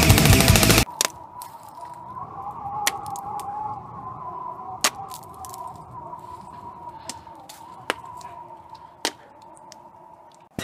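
Electric airsoft rifle (SIG 552 replica) firing a rapid full-auto burst that cuts off abruptly about a second in. Then a much quieter stretch follows, with a faint wavering tone and a few scattered sharp clicks.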